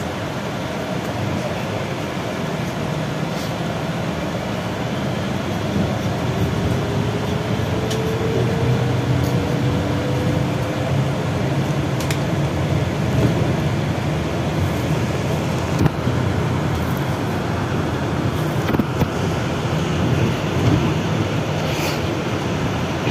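Cabin noise inside a BKM 32100D trolleybus on the move: steady road and tyre noise with a low hum. A faint whine from the electric drive rises in pitch for a few seconds in the middle, and there are occasional clicks.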